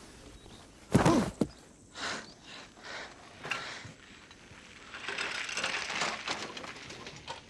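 A man grunts loudly as he is thrown down onto dirt about a second in, followed by a few scattered knocks. Near the end a metal wheelchair rattles and scrapes over the dirt for a couple of seconds as it is shoved over.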